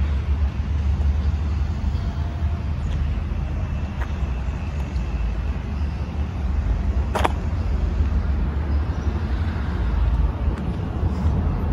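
Outdoor background noise, a steady low rumble, with one sharp click about seven seconds in.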